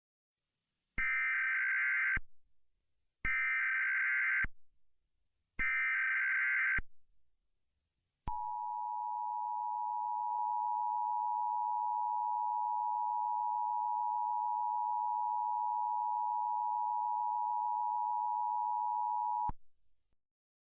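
Emergency Alert System tones: three short bursts of SAME header data tones, each about a second long, followed by the steady two-tone EAS attention signal, held for about eleven seconds before it cuts off. The header bursts are the coded data that lead into an alert message.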